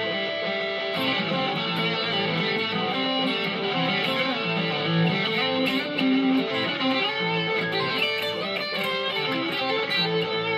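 Schecter Diamond Series electric guitar, fitted with a Sustainiac pickup, played through an amplifier: a continuous line of picked notes, some quick and some held.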